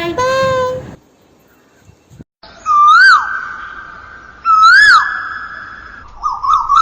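Bird-like whistled calls: two loud whistles, each rising and falling and then held steady for a second or more, followed near the end by a rapid warbling trill. A short voice-like pitched note sounds in the first second, before a brief silence.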